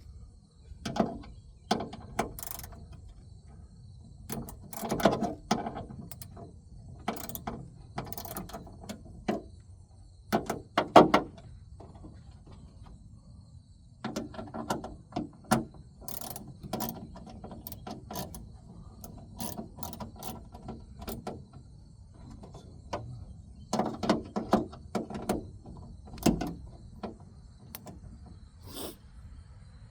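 Irregular metallic clicks, knocks and clatter of hand tools and parts as a new trunk latch is fitted, with runs of rapid ratchet clicking as its T30 Torx bolts are driven.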